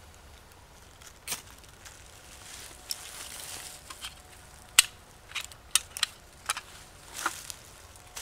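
Fire-lighting at a pit: cotton wool smeared with Vaseline catches light with a soft hiss about two and a half seconds in and burns. Around it come a string of sharp clicks and snaps, the loudest just before the five-second mark, from the lighting and handling of the dry tinder and sticks.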